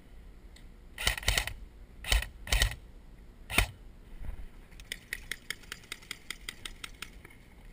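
Airsoft G36C-style electric rifle fired in four short bursts, then about a dozen quick, even ratchet clicks as its high-capacity magazine is wound.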